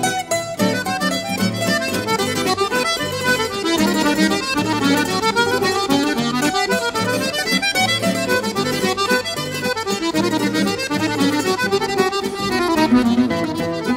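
Instrumental background music: an accordion tune with quick, steadily changing notes.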